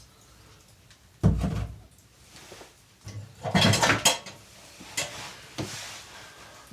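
Cookware and utensils being handled: a heavy thump about a second in, then a burst of clattering in the middle, and a couple of lighter knocks near the end.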